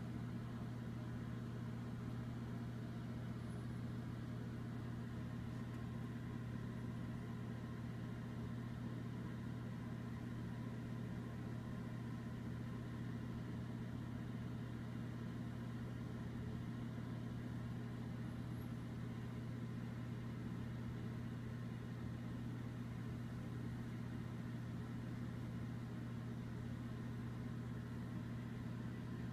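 A steady low hum that holds even and unbroken throughout.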